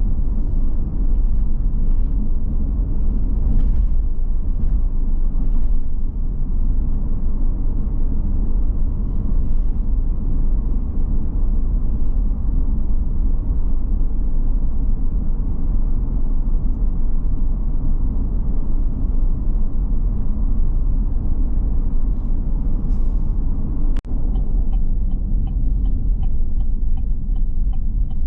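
Car driving, heard from inside the cabin: a steady low road and engine rumble. Near the end a sharp click, followed by a light, regular ticking.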